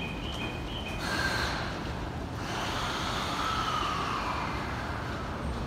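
Rinkai Line 70-000 series electric train standing at the platform just before departure: short electronic chime tones in the first second, then a steady hiss of air. Right at the end, the low whine of its original inverter motor drive begins to rise as the train starts to pull away.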